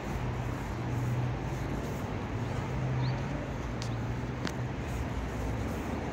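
Urban street ambience: a steady low mechanical hum, such as a vehicle engine running, over a background wash of city noise, with a few faint clicks and one brief high chirp near the middle.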